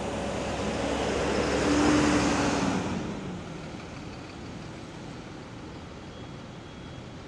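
Mercedes-Benz OH-1526 coach's diesel engine pulling away as the bus passes close by. It grows loudest about two seconds in, then drops off sharply and runs on more quietly as the bus moves off.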